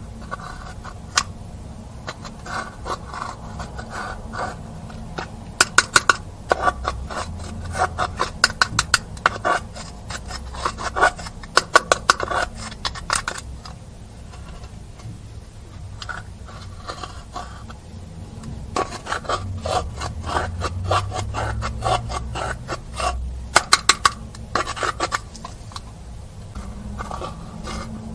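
Slime being mixed, with a scraping, rubbing sound throughout and runs of rapid clicks and pops, densest twice in the middle of the stretch.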